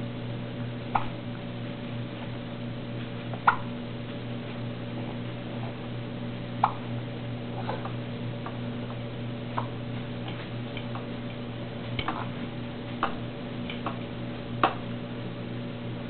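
A baby's hiccups: seven or eight short, sharp hiccups at uneven intervals of one to three seconds, over a steady low hum.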